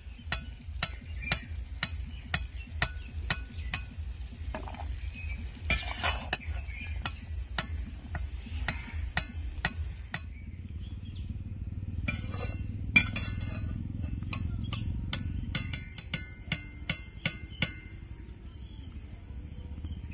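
A cooking spoon clinking and scraping against a pan as sugar-syrup-coated boondi is stirred and turned, with a faint sizzle underneath. The clinks come about twice a second at first, give way to a steadier noise in the middle, and return as a few scattered clinks near the end.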